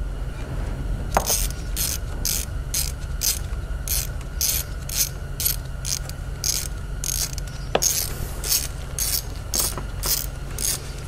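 Hand ratchet with a Torx T30 bit clicking in repeated strokes, about two to three a second, as it unscrews the bolt holding the high-pressure fuel pump.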